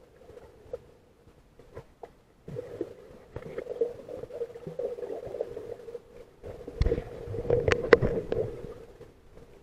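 Muffled underwater noise through a waterproof camera housing: water moving against the housing, with a faint steady hum and scattered sharp clicks and knocks. It grows louder about two and a half seconds in, and the loudest knocks and low thumps come about seven to eight seconds in.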